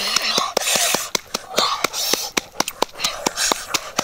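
A person chewing and smacking loudly with the mouth close to the microphone: a rapid, uneven run of wet clicks with noisy breaths between.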